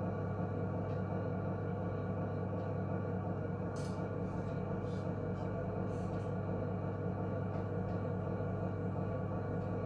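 Electric potter's wheel motor running with a steady hum while slip is brushed onto a turning bowl. A couple of faint clicks, about four and six seconds in, come from the brush knocking the slip container.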